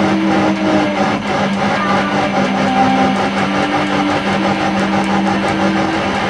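Live noise music: a dense wash of distorted noise over a steady low drone, with higher held tones that shift pitch every second or so.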